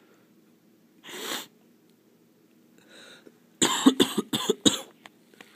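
A person coughing in a quick run of about five coughs, starting about three and a half seconds in. A brief hiss comes about a second in.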